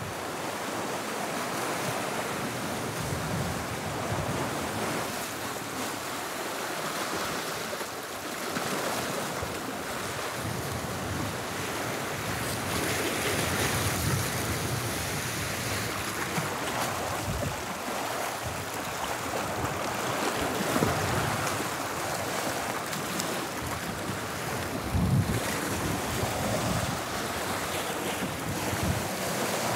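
Sea surf washing and breaking against shoreline rocks, swelling and easing in slow surges, with wind buffeting the microphone in a few short low gusts.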